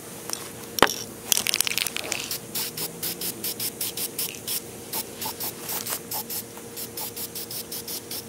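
Aerosol spray-paint can spraying in many short hisses, about three a second, after a sharp click about a second in.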